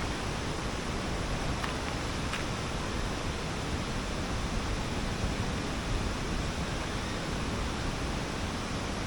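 Steady rushing of falling water from a waterfall, an even unbroken noise, with a couple of faint ticks about two seconds in.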